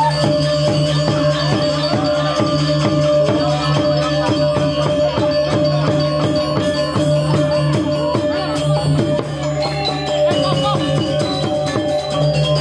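Balinese gamelan ensemble playing a fast, dense passage: rapid metallic strokes over steady ringing tones, easing briefly a little after the middle before picking up again.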